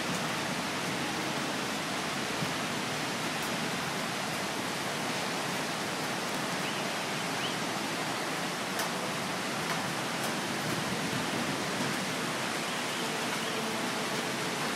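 Heavy downpour pouring steadily, an even rushing hiss of rain, with a few faint ticks of drops striking nearby surfaces.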